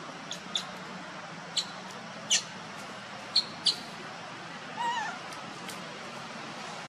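Infant pig-tailed macaque giving brief high squeaks, about six of them, then one short wavering whimper about five seconds in.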